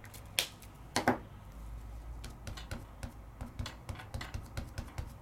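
Light clicks and taps of craft supplies handled on a tabletop while ink is put onto a baby wipe. Two sharper clicks come about half a second and a second in, then many fainter irregular ticks.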